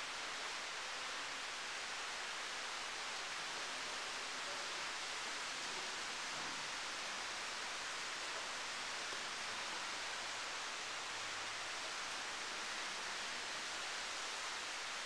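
Steady, even hiss with no distinct sounds in it: quiet background noise and room tone.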